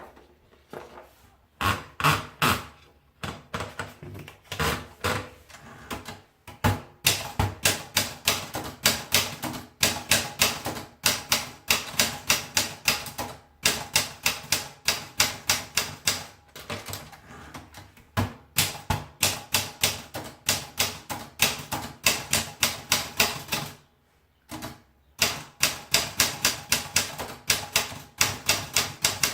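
Olympia Traveller portable manual typewriter being typed on: runs of crisp key strikes, about four a second, broken by a few short pauses.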